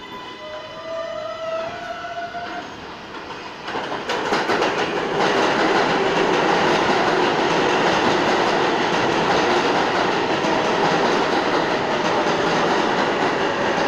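New York City subway train running past close alongside the platform. A rising whine comes first; about four seconds in, the loud, steady noise of the cars rolling past takes over.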